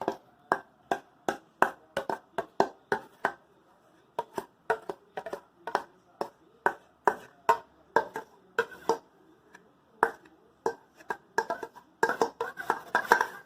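Homemade glue-and-activator slime squeezed and worked by hand, making sharp wet clicks and pops about two or three times a second, with a couple of short pauses.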